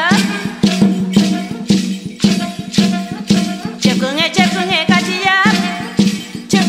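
Mapuche harvest-dance song: a voice singing in Mapudungun over a steady beat of shaken percussion and a sustained low drone.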